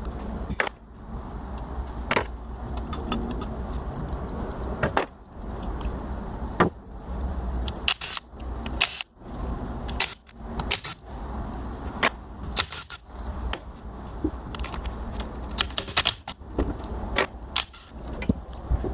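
Hand tools working the 13 mm nuts off a Honda B-series intake manifold: irregular sharp metallic clicks and clinks of tool on nut and metal, over a steady low hum.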